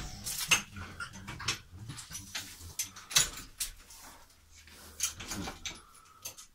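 A horse in a stall of a horse transporter, heard as a string of short, scattered knocks and rustles.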